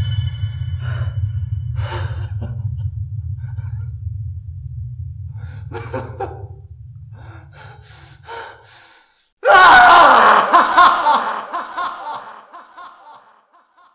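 A man's short breathy chuckles and gasps over a low drone that fades away. About two-thirds of the way in, he breaks into a sudden loud, manic burst of laughter that trails off in short cackles.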